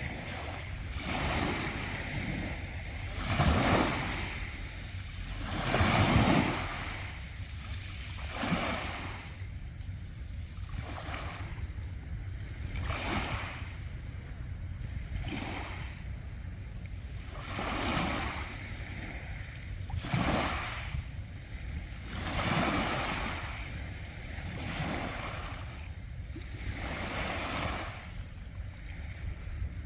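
Waves washing onto a beach of round pebbles. The surges come every two to three seconds, the loudest about three and a half and six seconds in, over a steady low rumble.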